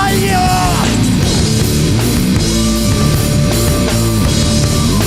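Heavy rock band playing: distorted electric guitars and a drum kit with crashing cymbals. A sung word trails off about a second in, then the band plays on without vocals.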